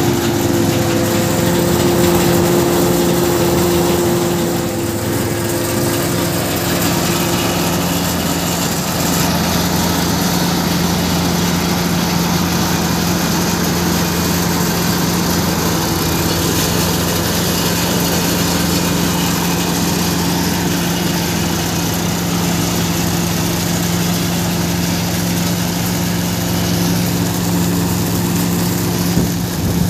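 Tractor-driven Gautam groundnut thresher running steadily under load, a continuous mechanical hum of engine and threshing machinery with a broad rushing noise from its blower and shaking sieves.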